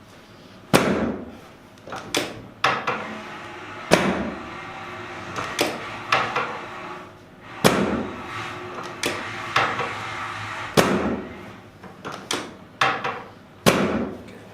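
Chiropractic drop table clacking as its pelvic drop section is thrust down during a sacrum adjustment: five loud clacks about every three seconds, each with a brief ring, and smaller clicks between them as the section is reset.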